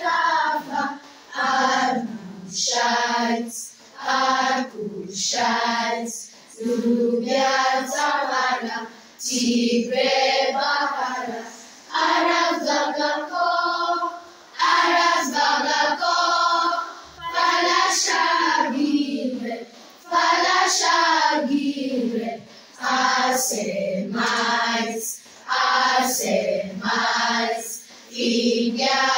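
A choir singing a song in short phrases, with brief breaks between them.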